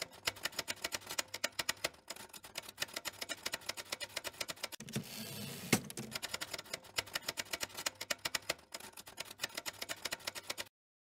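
Typewriter keys clacking in quick, uneven strokes, several a second. About five seconds in there is a heavier rolling stretch that ends in one loud clack, and the typing breaks off just before the end.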